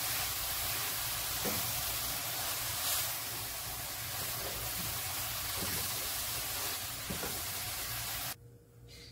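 Spatula stirring a coconut and milk-powder barfi mixture in a non-stick pan over a low flame, with a steady soft sizzling hiss and faint scraping strokes. The sound cuts off suddenly about a second before the end.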